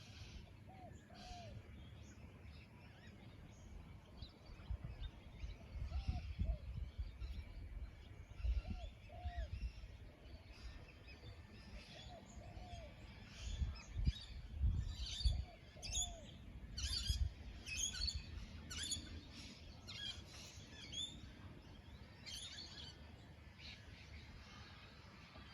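Birds chirping and singing outdoors, with a short, low, arching call repeated in pairs every few seconds beneath the higher chirps. Wind rumbles on the microphone in gusts, strongest about midway.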